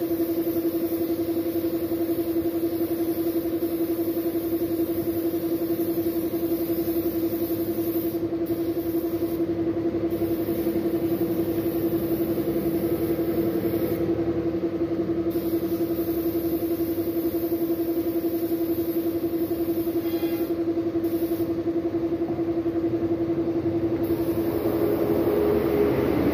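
Paint spray gun hissing in passes, its air cutting off and starting again several times, over the steady hum of an air compressor.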